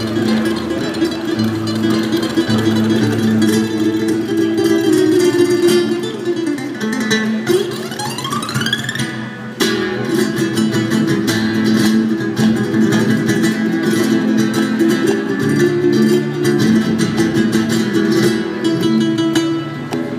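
Solo acoustic guitar played fingerstyle in a Spanish style, melody over steady bass notes. About eight seconds in a note slides upward, then after a short break the playing resumes with rapid strummed chords.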